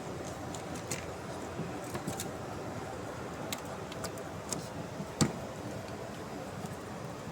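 Scattered clicks and taps of hand tools and metal parts being handled during refitting of spark plugs and ignition coil packs, over a steady background hiss, with one sharper knock about five seconds in.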